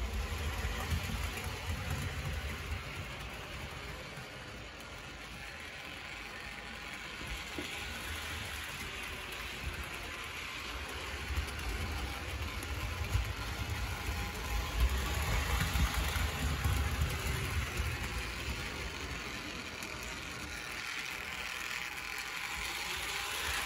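Hornby Dublo 2-6-4 tank locomotive running, its electric motor and gears whirring while its metal wheels rumble over three-rail metal track as it hauls goods wagons. The sound swells for a few seconds in the middle.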